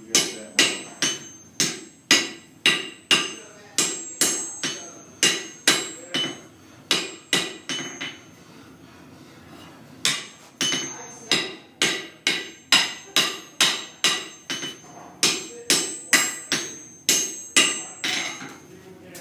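Hand hammer striking hot gun-barrel iron on an anvil during forge welding, about two blows a second, each with a high ring from the anvil. The blows stop for about two seconds partway through, then resume.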